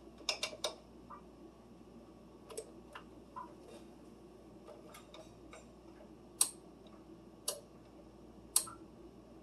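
Oven control keys being pressed to set it preheating to 350 degrees: a quick run of sharp clicks near the start, then single clicks, the last three about a second apart.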